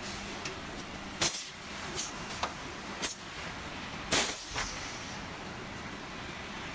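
Spiral crimped fin-and-tube rolling machine for refrigerator wire condensers running with a steady mechanical noise, broken by about six short, sharp hissing clicks. The loudest and longest click comes about four seconds in.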